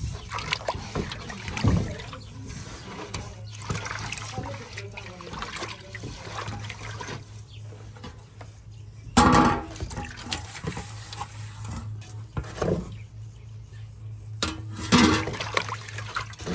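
Water splashing and trickling, with louder splashes about nine seconds in and near the end, over a low steady hum.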